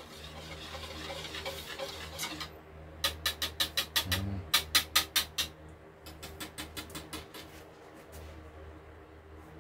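Spoon scraping through a small mesh strainer over a plastic bowl, then a quick run of sharp taps, about five a second, as the spoon knocks the strainer to work the mixture through. Fainter taps follow near the end, over a steady low hum.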